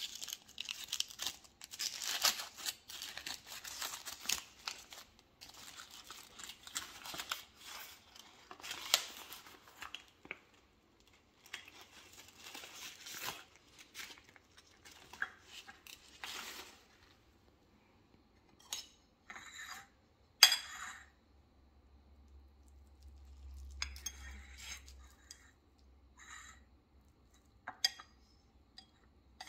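Cooked bamboo leaves rustling and crinkling as they are peeled off a rice dumpling by hand, in irregular bursts through the first half. Later come a few sharp clinks of a metal fork against the ceramic plate, two of them louder than the rest.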